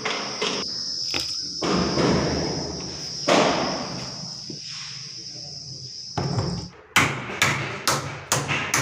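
Steady high-pitched chirring of crickets, with some rustling noise underneath. The chirring cuts off near the end, and a run of sharp, evenly spaced taps follows, about two to three a second.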